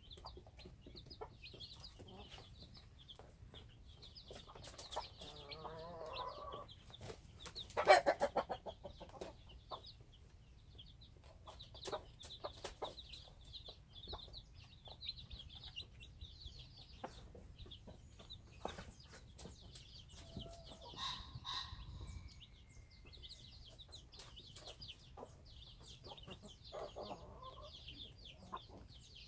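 A flock of Cheonggye (green-egg) chicks peeping continuously, with their mother hen clucking a few times and giving one short, loud outburst about eight seconds in.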